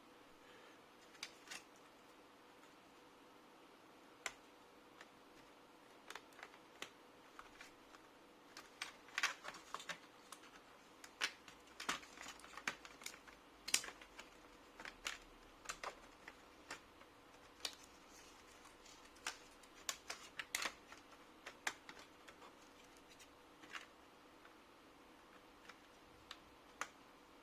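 Irregular small clicks and taps of plastic and metal laptop parts being handled and fitted back together, few at first, coming thick and fast through the middle, then thinning out. A faint steady hum lies underneath.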